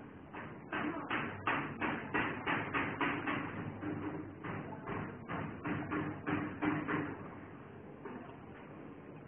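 Scissors snipping through cotton fabric in a steady rhythm of about three cuts a second, stopping about two seconds before the end.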